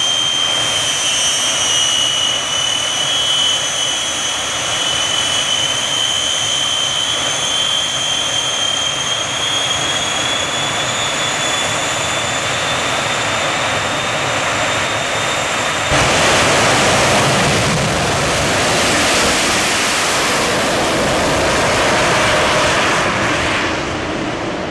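Shockwave jet truck's three jet engines running at the starting line with a loud, steady high whine. About two-thirds of the way in the sound jumps suddenly to a louder, fuller roar as the engines go to full power and the truck launches down the track, easing off slightly near the end.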